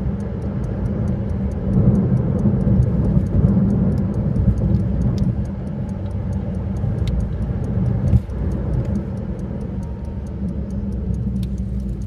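Car being driven along a road: steady low engine and tyre noise, with a light, rapid ticking running through it, about four ticks a second.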